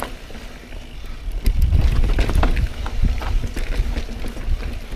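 Wind buffeting a helmet-mounted action camera's microphone on a downhill mountain bike (a Pivot Firebird), a low rumble that swells about a second and a half in, with scattered clicks and clatter from the bike rolling over rocky ground.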